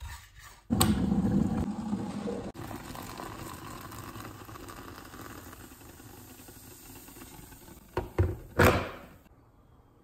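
Oatmeal frying in a pan: a sizzle starts suddenly about a second in and slowly dies down, with two or three sharp clatters near the end.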